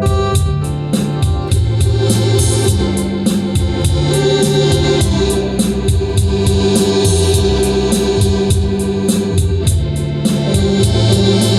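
Organ playing a melody over held bass notes and chords, with a steady ticking beat of about three to four strokes a second.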